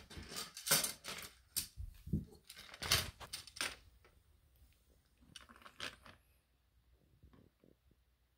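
Old English Sheepdog puppy's claws clicking and scrabbling on a hardwood floor, mixed with a hard plastic toy knocking against the boards: a dense run of clicks and knocks over the first few seconds, then a few scattered clicks as it settles to chew the toy.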